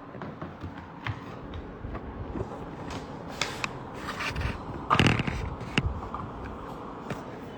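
Handling noise: rustling and scraping with scattered short clicks, the loudest burst about five seconds in.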